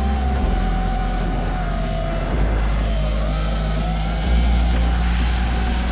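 Rally car engine running hard, its pitch rising and falling, with a music track's bass line underneath that changes note about every two seconds.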